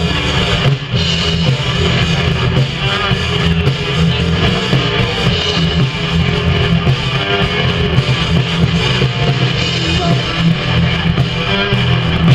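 A rock band playing live, an instrumental passage led by electric guitar over a loud, steady low end.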